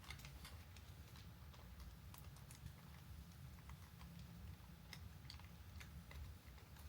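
Near silence: a low room hum with faint, scattered small clicks.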